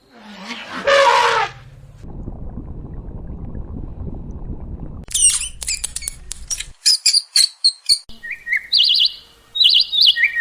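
A loud, harsh animal call in the first two seconds, then a low rumbling noise, then small birds chirping in quick high trills from about five seconds in.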